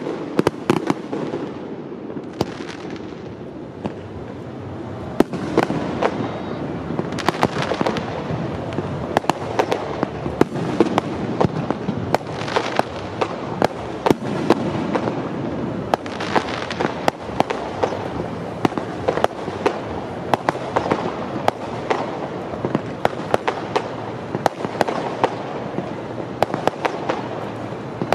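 Aerial fireworks shells bursting in quick succession: a dense run of sharp bangs over a continuous rolling rumble, easing off briefly a couple of seconds in, then picking up again.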